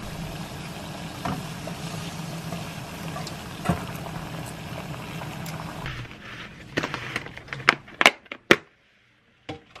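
Pot of water at a rolling boil with spaghetti being stirred in, and a couple of light clinks of metal tongs against the stainless pot. About six seconds in this gives way to crackling and several sharp snaps of a plastic clamshell salad container being pried open.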